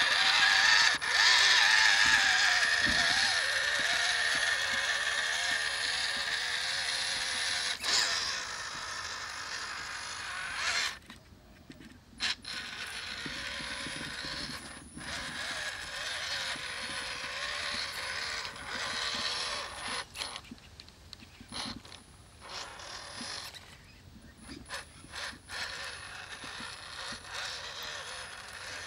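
Electric motor and geared drivetrain of a WPL B36 Ural 6x6 RC truck whining as it drives, the pitch rising and falling with the throttle. The whine is loudest at first, then drops to a quieter level about eleven seconds in, broken by a few short pauses as the truck stops and starts.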